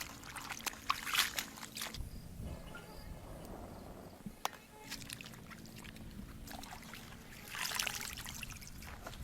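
Vegetables being washed by hand in water: irregular splashing and trickling, strongest in the first two seconds and again near the end.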